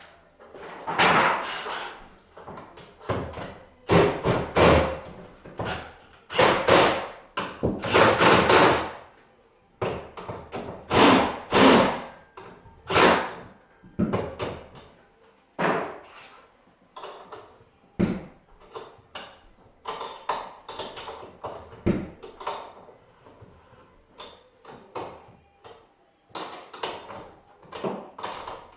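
Irregular knocks, bangs and clatter of hand work on a sectional garage door: panels and hardware being handled and struck. The blows come in uneven clusters, about one or two a second, with a few sharper single knocks later on.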